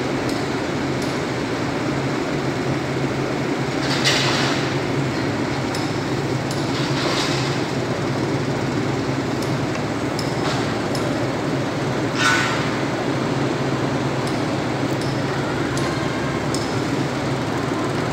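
A steady, low engine drone with a faint hum runs throughout, with three brief, louder swishes about four, seven and twelve seconds in and a few faint ticks.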